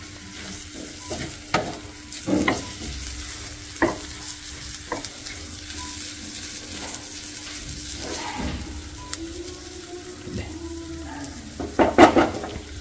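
A wooden spatula stirring and scraping banana-flower thoran in a nonstick frying pan over a faint sizzle. Every second or so the spatula gives a sharper scrape or knock against the pan, with the loudest cluster near the end.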